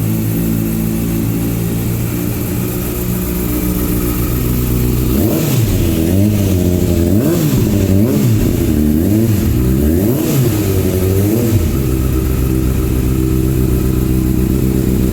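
2018 Kawasaki ZX-636's inline-four engine idling, then revved in a quick series of throttle blips, the pitch rising and falling several times, before settling back to idle.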